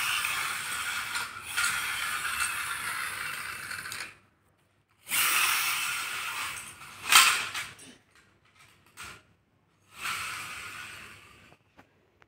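Yellow toy backhoe loader's gears whirring as it rolls across a tiled floor. There are three runs, each starting loud and fading out, with a sharp knock about seven seconds in.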